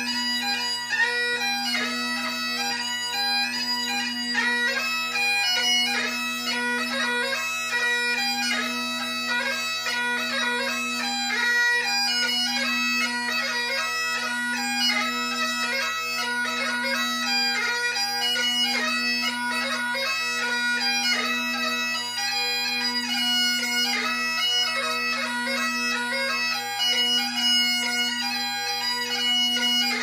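Great Highland bagpipe being played: steady drones under a fast chanter melody with quick, ornamented notes. The drone sound swells and fades regularly, about every one and a half seconds.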